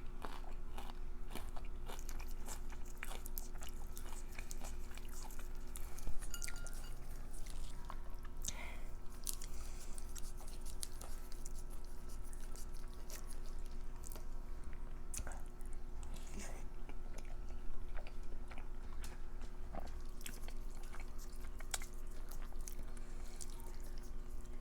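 Close-miked chewing and biting with crisp crunches, a person eating air-fried crab cream cheese wontons whose shells are still crunchy. A faint steady hum runs underneath.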